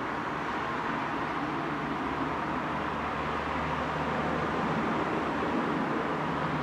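Steady rushing background noise with a faint low hum under it, outdoors at night.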